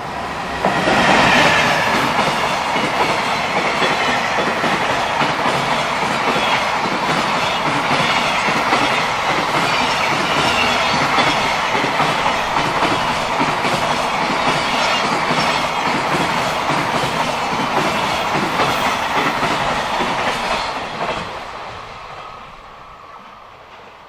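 A JR Freight EF210 electric locomotive passing close by, with a brief falling whine as it goes past, followed by a long train of container flatcars rattling over the rails with a steady clickety-clack. The sound fades away over the last few seconds as the end of the train moves off.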